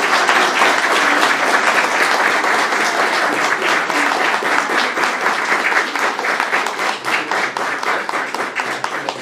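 Applause from a room of seated people clapping, a dense steady patter of many hands that tapers off toward the end.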